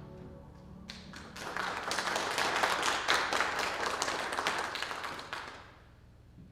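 Congregation clapping for about five seconds at the end of a song. The clapping starts about a second in and fades out near the end, just after the band's last held chord dies away.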